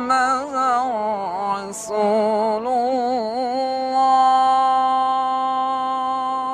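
A solo voice chants an ornamented, wavering melody, then settles into one long held note about four seconds in.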